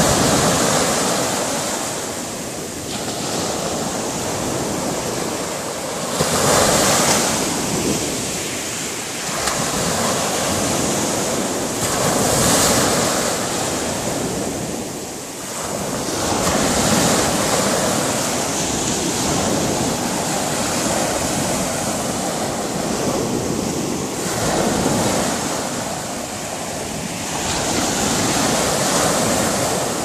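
Small sea waves breaking and washing up a beach: a steady rush of surf that swells and ebbs every four to six seconds as each wave comes in.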